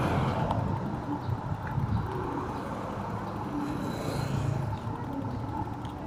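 Road traffic on a city street: vehicles passing, heard as a steady, fluctuating wash of engine and tyre noise.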